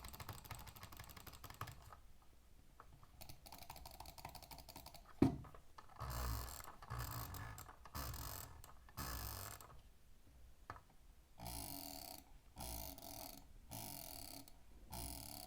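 Keys on a gaming keyboard with optical or mechanical switches being typed on. The typing is fast, in short clattering bursts about a second long, with one sharp, louder clack about five seconds in.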